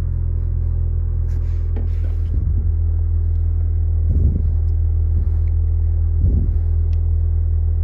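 Mitsubishi Lancer's engine idling, a steady low rumble heard from inside the cabin.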